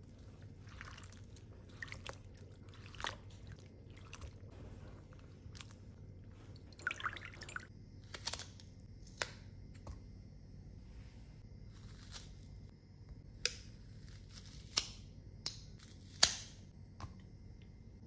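Hands handling strawberries in a glass bowl of water, with soft drips and splashes, then a hand-held plastic strawberry slicer cutting berries and pieces set down on a plate, giving scattered sharp clicks and squelches, the loudest near the end.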